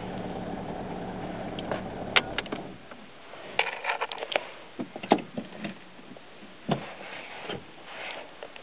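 Fiat Seicento 1.1 four-cylinder engine idling steadily, an idle the owner finds a bit rough, then switched off about two and a half seconds in. A sharp click comes just before it stops, and scattered knocks and clicks like a car door or interior handling follow.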